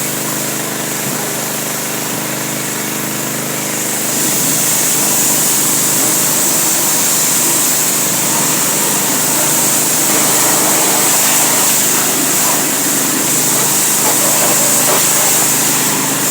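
A motor running steadily with a strong hiss over it, getting a little louder about four seconds in.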